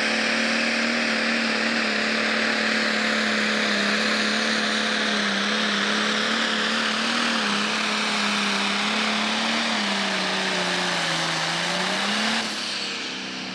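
Pro Stock pulling tractor's turbocharged diesel engine at full throttle under heavy load, holding a steady pitch while it pulls the sled. About ten seconds in it lugs down a little, picks up briefly, then drops off in loudness near the end.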